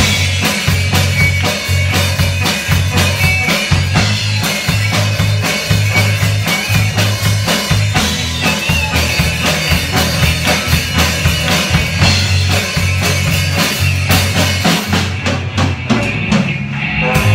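Rock band playing live: electric guitars over bass and a drum kit, with a steady kick and snare beat.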